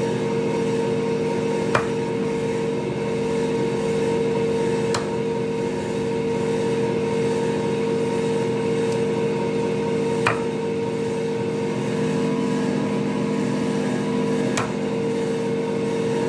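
A motor hums steadily at one fixed pitch throughout. Over it, a heavy knife chops through chicken pieces onto a wooden block four times, a few seconds apart.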